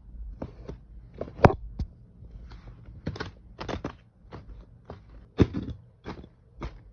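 Irregular clicks and knocks of objects being handled, about two a second, with two sharper, louder knocks about one and a half seconds in and again about five and a half seconds in.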